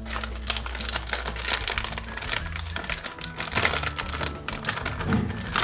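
Plastic packet crinkling and rattling in irregular rapid clicks as dry pancake mix is poured from it into a plastic bowl, over background music.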